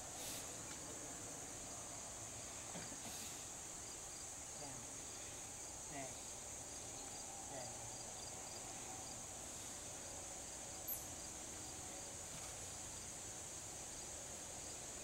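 Steady high-pitched drone of insects in the grass, with a faint regular ticking above it and one brief sharp click late on.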